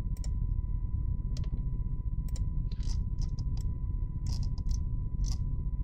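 Computer mouse clicking at irregular intervals, some clicks in quick pairs, over a steady low background hum.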